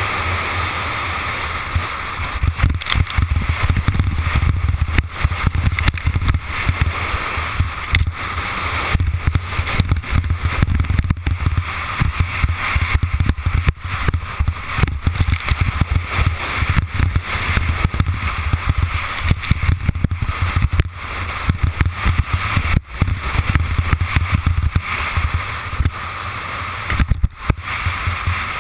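Wind rushing and buffeting over a helmet-mounted action camera at downhill racing speed, a continuous deep rumble full of irregular gusty flutters, with skis scraping and chattering over the hard-packed snow beneath.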